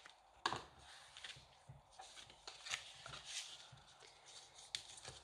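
Scissors snipping cardstock glue tabs, with the paper rustling as it is handled: a string of faint, irregular snips and rustles.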